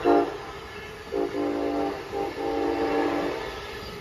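Amtrak train horn blowing: a blast that cuts off just after the start, then a longer blast from about a second in, broken twice briefly, stopping a little after three seconds.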